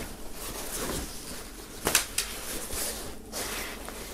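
Rustling of a large polyester flag being handled and folded on a table, the thin fabric crinkling and sliding in uneven waves, with one sharper, louder moment about two seconds in.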